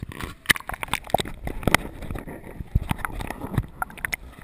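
Water slapping and splashing against plastic sit-on-top kayak hulls, with irregular sharp knocks as the hulls and paddle bump and shift.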